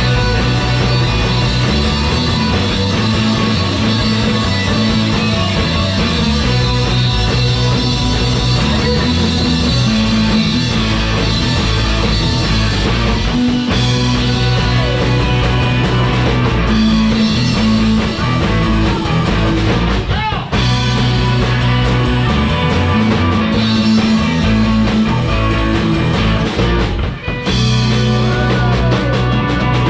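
Live rock band playing an instrumental passage: electric guitar over bass and drums, loud and continuous.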